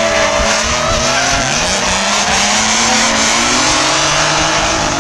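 Two BMW E36 drift cars sliding in tandem: engines revving up and down, with tyres squealing and skidding. A steady wavering whine from the FPV drone's motors runs over them.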